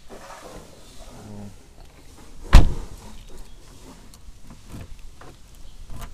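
A 2005 Hyundai Elantra's driver door shut with one sharp, loud bang about two and a half seconds in. Small key and lock clicks follow.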